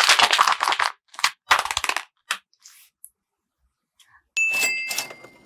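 Paper crinkling and rustling in short bursts as it is handled. About four seconds in comes a bright metallic ding that rings on steadily and fades.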